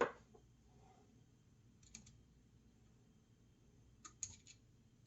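A few small clicks and taps from a little screw and router parts being handled and fitted by hand: a sharp click right at the start, a faint one about two seconds in, and a small cluster of clicks about four seconds in.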